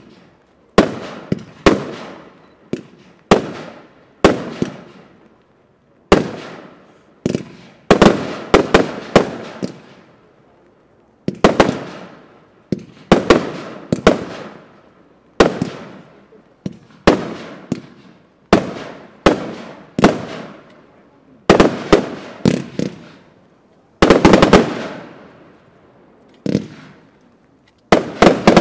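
Wolff 'Hurricane' firework (Dynasty Selection) firing a long series of shots. Each is a sharp bang followed by a fading tail, with a new shot or quick run of two to five shots every second or two, and a rapid volley about 24 seconds in.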